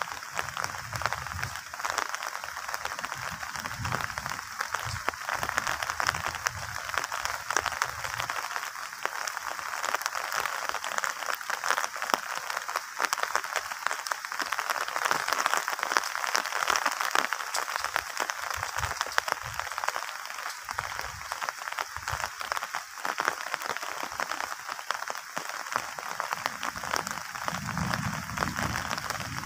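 A dense, continuous crackling chorus of frogs, with patches of low rumble in the first eight seconds and again near the end.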